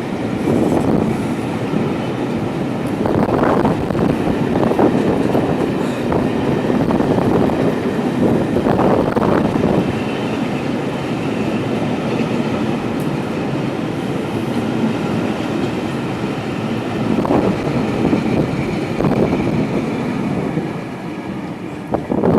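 A train running past, a steady rolling noise with knocks from the wheels every few seconds.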